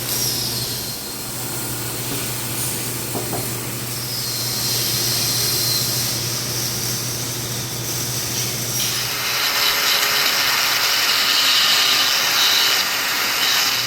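A handheld power tool runs with a steady hum; about four and a half seconds in a hiss joins it, and about nine seconds in a louder, harsh grinding noise takes over for several seconds as the tool cuts into aluminum.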